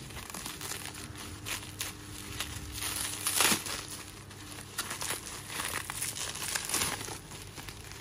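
Plastic bubble wrap crinkling and crackling irregularly as it is pulled open and unwrapped by hand, with a louder crackle about three and a half seconds in.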